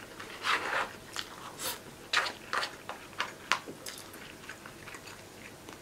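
Close-up mouth sounds of a man eating rice and breaded pork cutlet simmered in egg: irregular wet smacks and clicks of chewing, thinning out after about four seconds.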